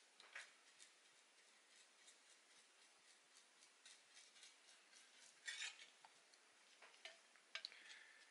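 Faint, scattered small clicks and taps of the parts of an Agidel electric shaver being handled on the bench, with a brief, slightly louder rustle about five and a half seconds in.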